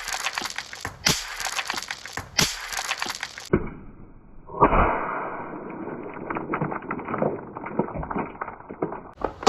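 Marbles rolling and clattering along a marble run: a dense stream of small clicks and knocks. About three and a half seconds in, the sound turns duller and goes on as a steady rolling rattle, still full of clicks.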